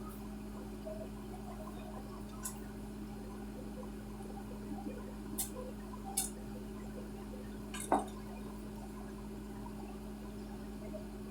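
A few short, light clinks and knocks of kitchenware being handled, the loudest about eight seconds in, over a steady low electrical hum.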